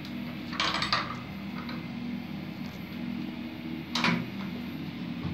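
Metal clinks and rattles of an Allen key working the router's collet, a cluster about half a second to a second in and another near four seconds, over a steady low hum.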